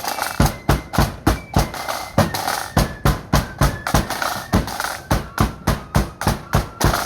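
Marching flute band playing: shrill flutes carrying a tune over heavy, regular bass drum and snare beats, about three to four strikes a second.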